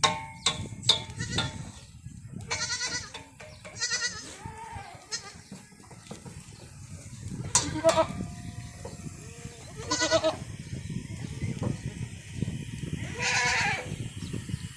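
Goats bleating: about five quavering calls a few seconds apart, with a few sharp clicks in the first second or two.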